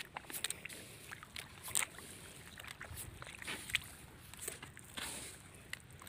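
Footsteps squelching and sloshing through wet, waterlogged paddy-field mud, an irregular run of soft splashy steps.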